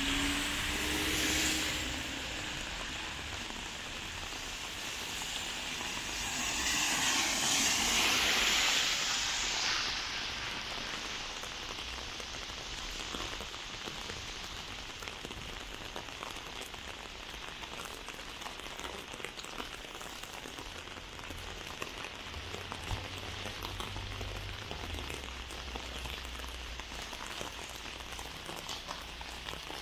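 Heavy rain on a wet city street, a steady hiss of rain on the pavement with scattered drips. About six seconds in, a louder swell of spray hiss rises and fades as a vehicle passes on the wet road.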